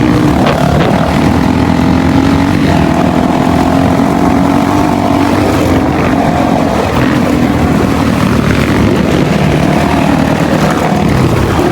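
Dirt bike engine running at a fairly steady speed while riding, its pitch holding nearly level over a constant rush of noise.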